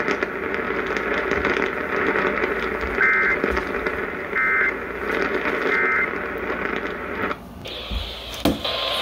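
Radio receiver hiss and static carrying three short digital data bursts of an Emergency Alert System end-of-message signal, about three, four and a half and six seconds in, marking the end of the alert. The hiss drops out about seven and a half seconds in, and there is a click about a second later.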